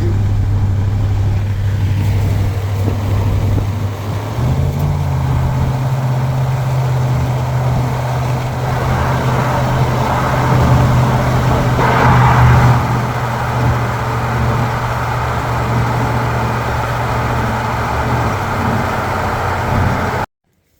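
A motor vehicle's engine running steadily while driving. Its pitch steps up about four seconds in, holds, and drops back near the end before the sound cuts off abruptly.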